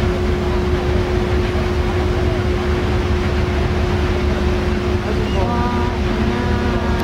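Sightseeing icebreaker under way into drift ice: a steady, loud low rumble with a constant hum running underneath.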